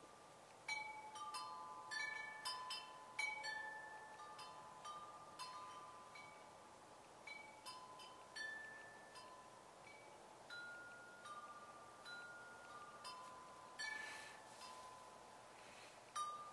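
Faint wind chimes ringing: single metal tones of several different pitches struck at irregular moments, about two a second, each ringing on and dying away.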